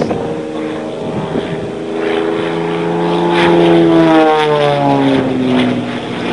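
Zlin Z-50 aerobatic plane's piston engine and propeller flying past. The sound is loudest about four seconds in, and its pitch drops as the plane goes by.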